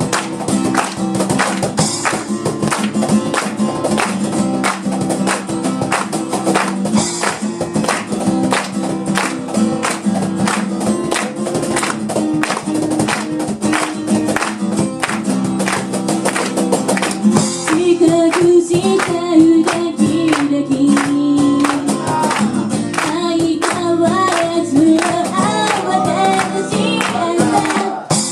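Acoustic guitar strummed in a steady rhythm, playing a song's intro; singing comes in over the guitar a little past halfway through.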